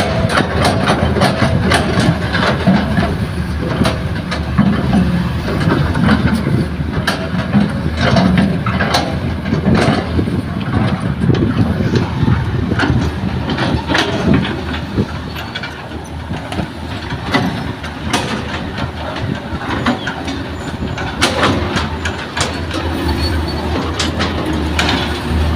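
Excavator at work: its diesel engine runs steadily while the machine clanks and knocks many times, sharp irregular knocks over a constant low hum.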